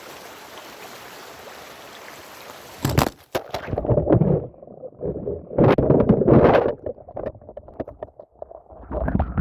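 A steady rush of running stream water. About three seconds in it gives way to loud, irregular, muffled sloshing and knocking with the high sounds cut off: the recording phone being dipped in the water to test whether it is waterproof.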